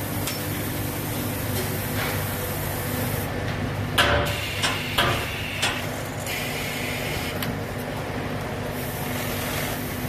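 Automatic bag folding, labelling and sewing-closer line running with a steady mechanical hum. About four seconds in, a quick run of four sharp knocks and clatter comes from the machine's mechanism as it works on the bag mouth.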